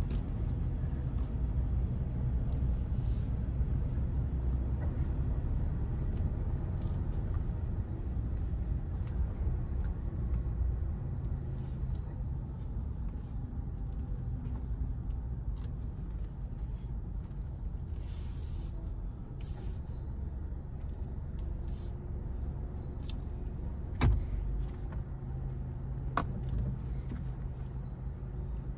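AVW tunnel car wash machinery running: a steady low rumble with short bursts of hiss now and then. A sharp knock comes about 24 seconds in and a click two seconds later.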